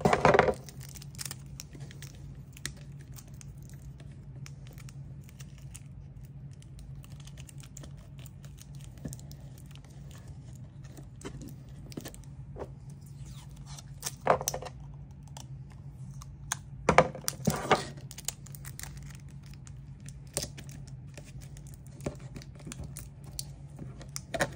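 Kapton tape being handled, torn and pressed down over thin LED wires, giving scattered small clicks and crinkles, with a few louder rips about 14 and 17 seconds in. A steady low hum runs underneath.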